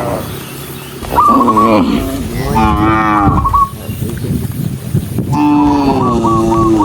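Cows mooing loudly, several long calls one after another, the first about a second in and the last starting past the middle and still going at the end.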